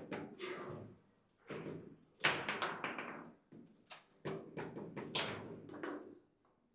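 Table football in play: the ball and the rods knocking against the plastic players and the table in a rapid, irregular run of sharp knocks and clacks, the loudest about two and five seconds in.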